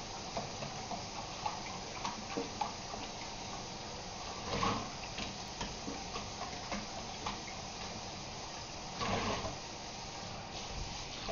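Kitchen tap running steadily into a stainless steel sink while a hank of hair weave is rinsed under it, with small knocks and splashes. Two louder bursts of splashing come about four and a half and nine seconds in.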